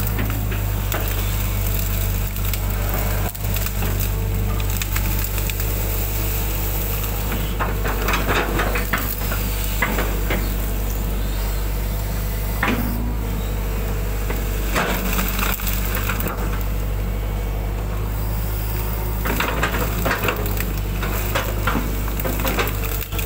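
Hydraulic excavator's diesel engine running steadily, with several bursts of crackling and snapping as the bucket pushes through palm fronds and undergrowth.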